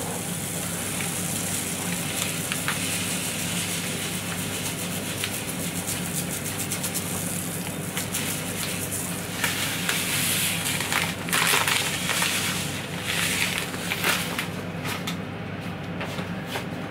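Dry couscous grains pouring from a plastic bag into a ceramic bowl, a steady rustling hiss, with louder crinkly rustles in the second half as the bag is shaken out.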